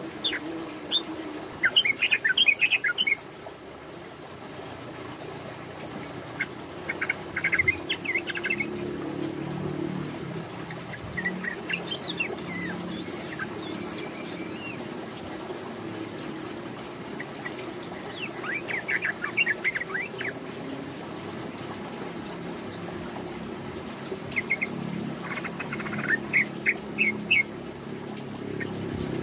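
Female yellow-vented bulbul (trucukan) singing its 'ropel' song: about five short bouts of rapid, chattering notes, separated by pauses of a few seconds, over a steady low background hum.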